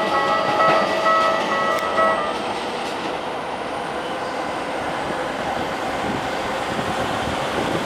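Electric train running past on the Keikyu Line with steady wheel and rail noise. A level crossing's warning bell rings over it and stops about two seconds in, when the crossing clears.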